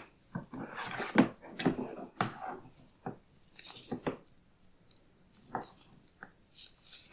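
Hand work on the belt: irregular taps and knocks, with a stretch of scraping or rubbing about one to two and a half seconds in.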